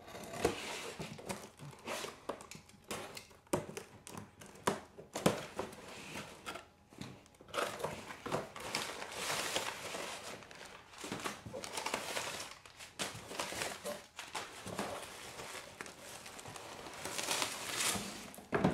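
Crumpled newspaper packing crinkling and a cardboard mailing box rustling and knocking as it is unpacked by hand, in irregular bursts with short crackles.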